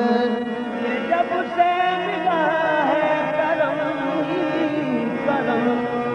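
Qawwali music: a wavering, ornamented melodic line over a steady lower tone, with no words sung.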